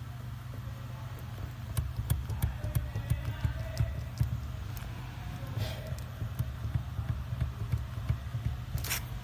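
Irregular metallic clicks and knocks of hand tools as the steering rack's mounting bolts are fitted and tightened, about three a second for several seconds, over a steady low hum.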